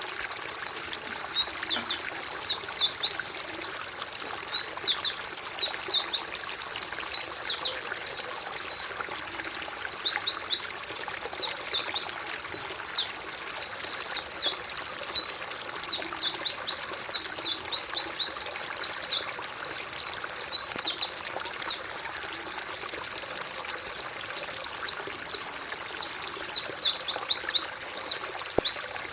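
Several white-eyes (pleci) calling together in a dense, unbroken stream of quick, high, downward-sweeping chirps, over a steady trickling-water background.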